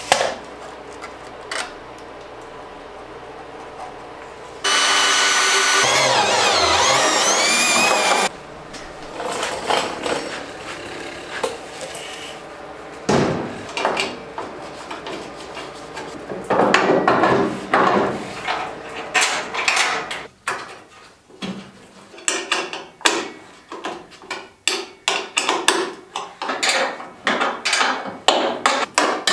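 Steel brackets and hand tools being worked while fitting parts to a vehicle body: scattered metallic knocks, taps and clatter, coming thick and fast near the end. About five seconds in, a power tool runs loudly for three or four seconds.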